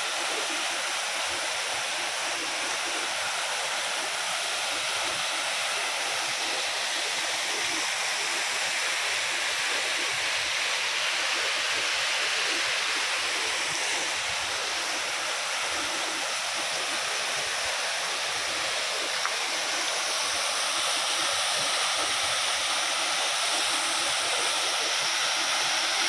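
Small waterfall: a thin stream of water falling down a rock face onto rock and into a pool, making a steady rush of splashing water.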